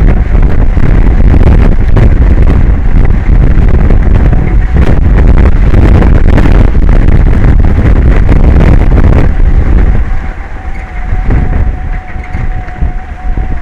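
Strong wind buffeting the microphone, a loud rumbling noise that eases about ten seconds in. A faint steady high tone runs through it.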